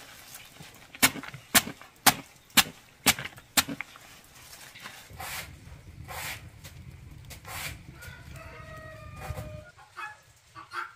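A knife chopping through banana stem in six sharp strokes, about two a second. A low steady rumble follows, then a few short pitched calls near the end.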